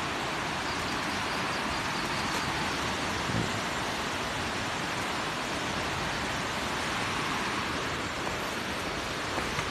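Steady, even rush of falling water from a waterfall about 50 m high.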